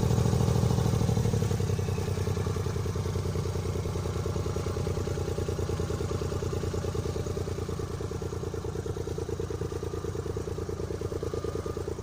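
Smart car running with a fast, even pulsing throb: the strange noise the car is making. It eases off a little over the first two seconds, then holds steady.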